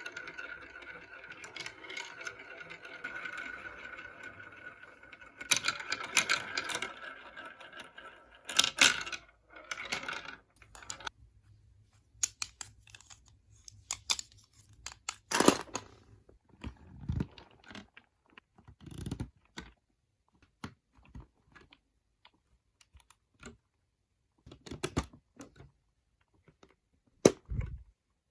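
Plastic marble run toy: marbles rolling and rattling along the track for about the first ten seconds, then scattered sharp plastic clicks and knocks.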